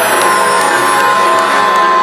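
Instrumental stage music with sustained held notes and no voice.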